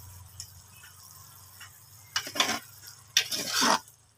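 A metal ladle stirring and scraping through simmering takway adobo in a metal pot, with two loud scraping strokes about two and three seconds in, over a low steady hum.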